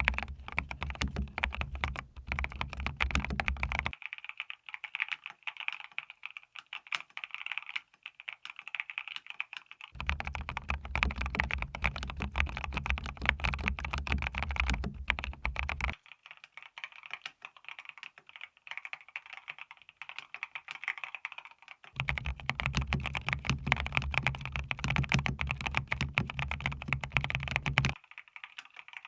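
Mechanical keyboard with WS Quartz linear switches (clear polycarbonate housings, nylon stems) in a plastic case, typed on continuously in a fast, dense stream of key clacks.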